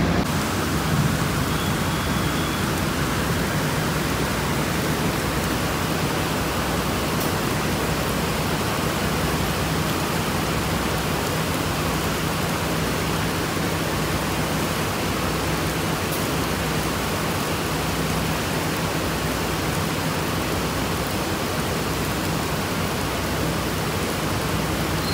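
Steady rain hiss with a faint low hum underneath.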